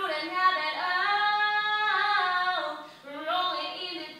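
A high female voice singing unaccompanied in long held notes, with a short break about three seconds in.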